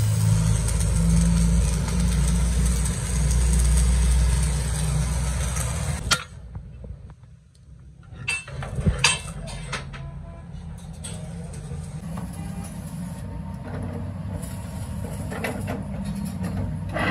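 A heavy engine runs close by with a low rumble and cuts off sharply about six seconds in. After a short lull come a few sharp clinks of cut steel plates being handled and stacked, then a steady, quieter machine hum.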